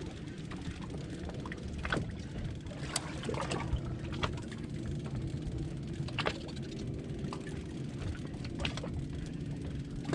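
Steady low rumble of a fishing boat at sea, with scattered sharp clicks and knocks every second or two.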